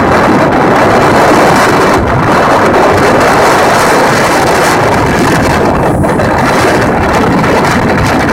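Gusty storm wind blowing on the microphone, a loud, steady rushing noise.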